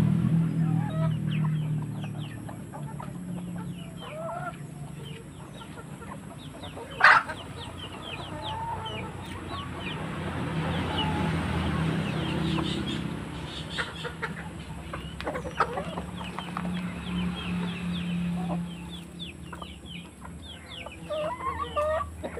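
A flock of chickens clucking and calling as they feed at a bunch of green bananas, with one sharp knock about seven seconds in, the loudest sound.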